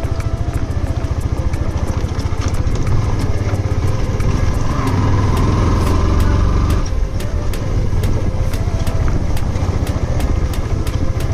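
Yamaha R15 v2's single-cylinder engine running under way, pulling harder for a few seconds in the middle and easing off about seven seconds in.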